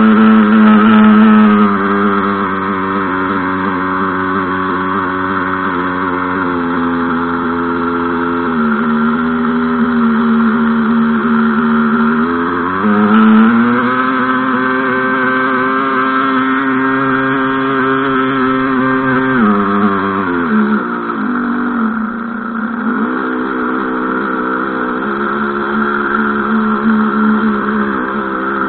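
Radio-controlled model boat's motor running, heard loud and close from the boat's own deck. Its pitch is steady, drops about eight seconds in, climbs back around thirteen seconds, and drops again near twenty seconds as the throttle changes.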